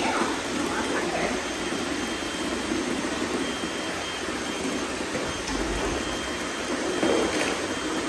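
Several robot vacuums, among them a Eufy and a Shark, running together on a concrete floor: a steady whir of suction motors and brushes.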